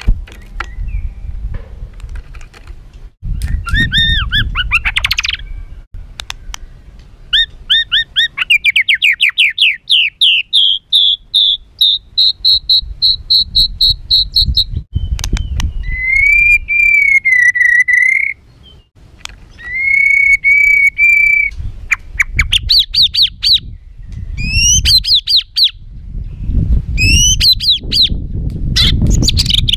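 White-rumped shama singing a harsh, agitated song: fast trills, runs of quick rising notes and a couple of held, wavering whistles, with a low rumble of background noise underneath.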